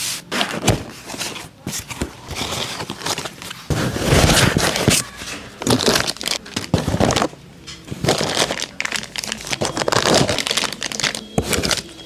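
Irregular crinkling and rustling handling noise, like packaging being handled, broken by short clicks and knocks.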